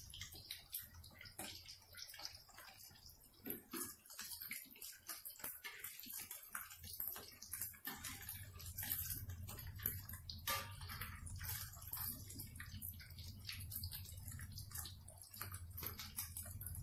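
Battered sardine-and-egg fritters frying in hot oil in a wok, sizzling with many small crackles and pops.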